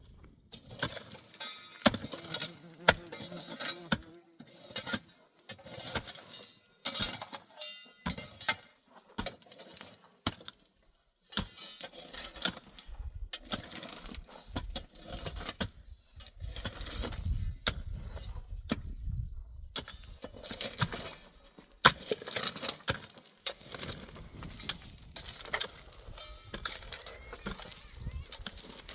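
Irregular sharp clinks and knocks of hard objects being handled, broken by a few short silent gaps.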